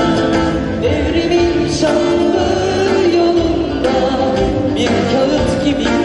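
Music: a song with a singing voice over strummed guitar in a steady rhythm.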